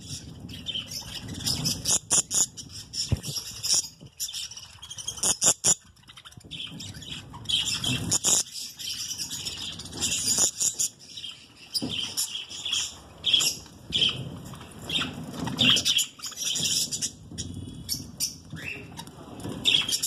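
Budgerigars chattering and chirping, a steady stream of short high-pitched calls, with some wing flapping.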